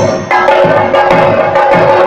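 Chenda drums beaten with sticks in a fast, steady rhythm, about three to four strokes a second, over a continuous ringing tone.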